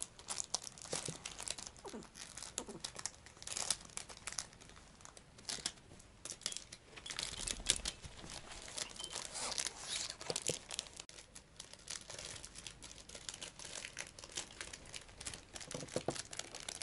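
A chihuahua biting and chewing a crinkly plastic packet: irregular crackling and crinkling of the plastic.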